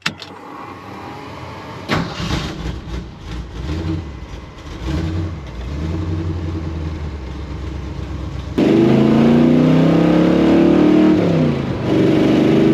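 A 1968 Ford F-100's 351 Windsor V8, freshly fitted with an HEI electronic distributor in place of points, catches and starts about two seconds in, then revs up and down. About two-thirds of the way through it becomes suddenly louder, still revving with rising and falling pitch, heard from inside the cab.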